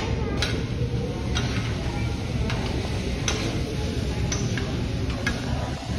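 Metal spatulas clicking and scraping on a hot teppanyaki griddle as meat is turned and chopped, sharp clicks at irregular intervals about once a second, over steady sizzling.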